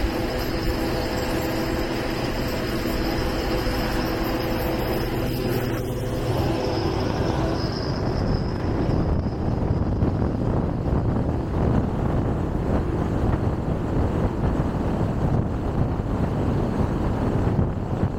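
A car driving along the road: steady road and engine noise. A humming drone fades out about six seconds in, leaving a rougher, even rumble.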